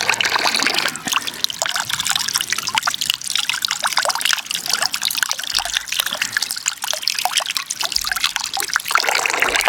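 Water running and trickling as eggs are washed by hand, with many small clicks and knocks of handling throughout.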